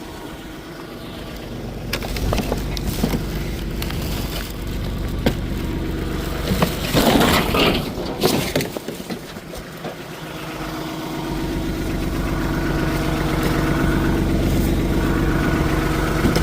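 A vehicle engine idling steadily, growing louder in the second half, with scattered knocks and a burst of crunching about seven seconds in as trash is handled.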